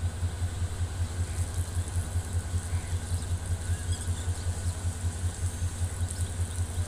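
A train's diesel engine idling, a steady low throb of about six pulses a second.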